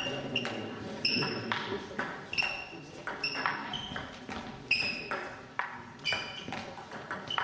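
Table tennis ball being hit back and forth in a rally, an irregular series of sharp ticks off bats and table, each with a short ringing ping, echoing in a sports hall.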